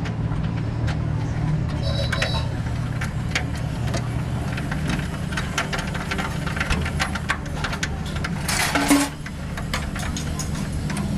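A truck engine idling with a steady low hum, with scattered metallic ticks and knocks over it and a short, loud hissing burst about nine seconds in.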